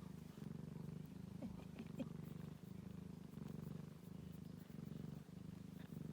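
Ragdoll cat purring steadily, the low rumble pulsing with each breath in and out, about once every 0.7 seconds. A couple of faint short squeaks come a second and a half to two seconds in.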